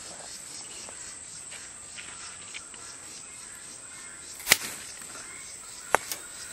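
Hand pruners snipping through a snake gourd's stem: two sharp snips about a second and a half apart, the first the louder. Insects chirp steadily behind.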